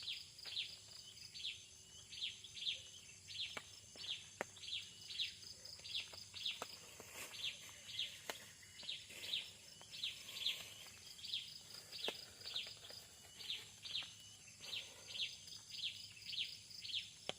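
A bird calling over and over in short high chirps, often in pairs, about two to three a second, over a faint steady high hiss.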